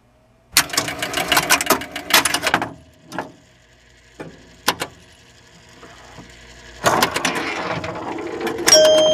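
Rapid mechanical clicking and rattling for about two seconds, then a few separate clicks. From about seven seconds in there is a steady rushing noise, and electronic tones begin just before the end.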